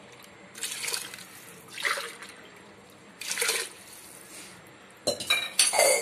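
Water poured from a tumbler into a pressure cooker of rice and vegetables in a series of short pours, the loudest near the end.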